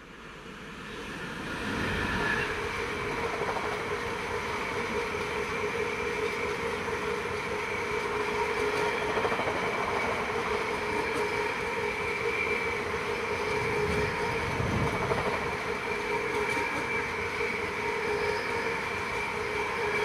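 Freightliner Class 66 diesel locomotive passing with a long train of empty container flat wagons: the sound builds as the locomotive approaches and passes about two seconds in, then the wagons' wheels keep up a steady rumble and clatter on the rails with steady ringing tones over it, cutting off as the last wagon clears near the end.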